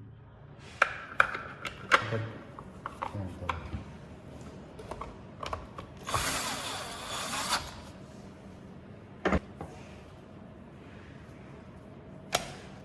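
Clicks, taps and knocks of a plastic belt cover being fitted and screwed onto a Lazaro L-941 belt sander. A noisy stretch of about a second and a half comes in the middle, a single knock follows, and a sharp click comes near the end.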